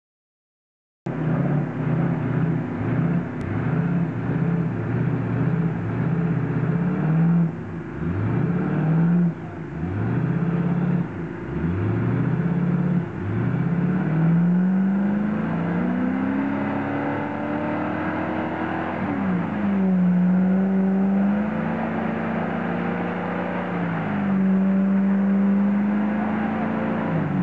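Classic Range Rover's engine revving hard in repeated bursts while its wheels spin in deep mud. The pitch rises and drops every couple of seconds, then is held high for longer pulls, dipping once about nineteen seconds in.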